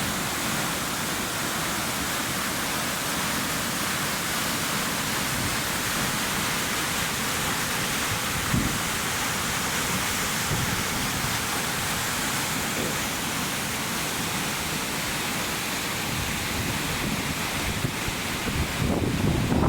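Water rushing steadily through the open sluice gates of a weir, an even, continuous noise. Low rumbles of wind on the microphone come in near the end.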